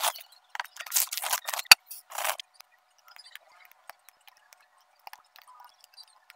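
Clear plastic cover film on a diamond painting canvas crinkling as it is peeled back, in three or four loud rustles over the first two and a half seconds, with one sharp click among them. After that come faint light clicks of resin drills being picked up and set onto the sticky canvas with tweezers.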